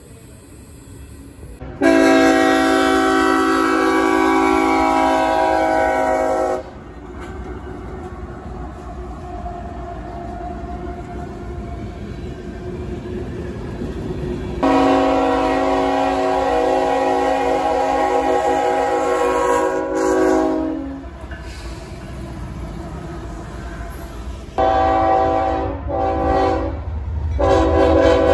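Locomotive multi-chime air horn on an approaching freight train, blown as two long blasts, then a series of shorter ones near the end. Under the horn, a low rumble of the train grows louder as it nears.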